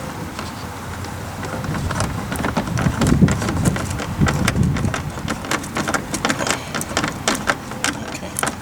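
Close hand-handling noise on a car door: a dense run of irregular clicks, taps and rattles over a low rumble, as a door speaker and its wiring are fitted into the door.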